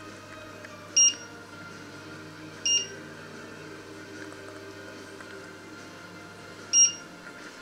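Three short electronic beeps from a glass-top electric hob's touch controls: one about a second in, one near three seconds and one near the end. Under them runs a low steady hum that stops with the last beep.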